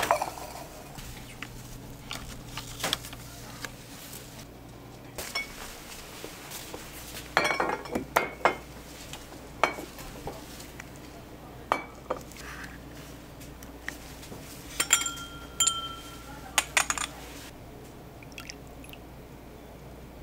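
Cocktail glassware clinking and knocking in scattered taps, with one glass ringing for about a second about three-quarters of the way through.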